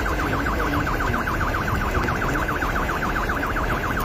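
Car alarm sounding a fast warbling tone that sweeps up and down several times a second, over a steady rushing hiss of heavy rain and floodwater.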